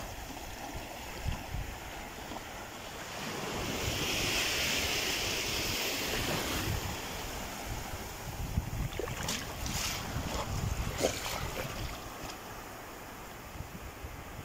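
Small surf washing in over a shallow sandy beach, swelling a few seconds in, with wind buffeting the microphone and a few short splashes later on.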